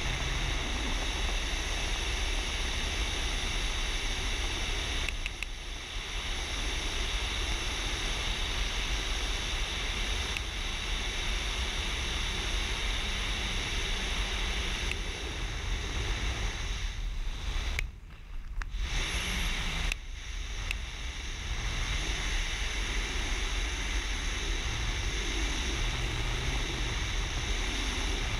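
Wind rushing over a helmet camera's microphone in wingsuit flight: a steady, loud rush with a deep rumble. It drops briefly twice, the second time, about two-thirds of the way through, the deepest.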